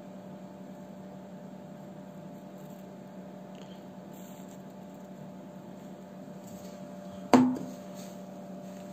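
Steady electrical hum with a single sharp knock about seven seconds in.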